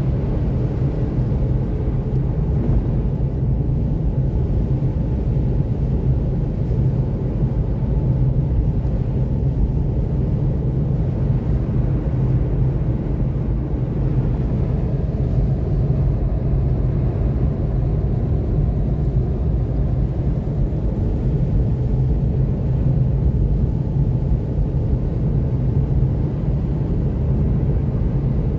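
Steady low road rumble of a Seat Mii electric cruising at highway speed on Nokian R5 winter tyres through deep snow: tyre and road noise with wind, and no engine sound.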